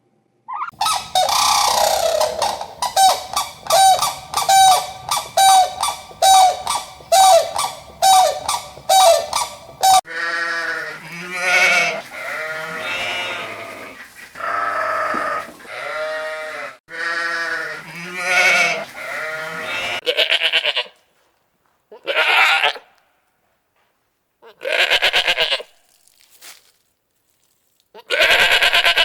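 Animal calls in a spliced sequence: a fast run of short, repeated, pitched calls, about ten seconds in longer calls that fall in pitch, then a few separate calls with silent gaps between them.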